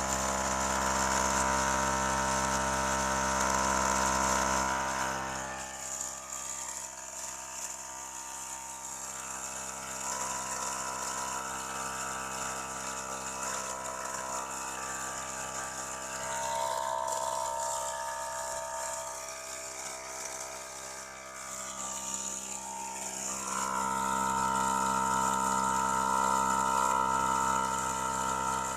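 Nakasaki NK1212 150 psi mini air compressor running with a steady pitched motor hum. It gets quieter about five seconds in and louder again near the end.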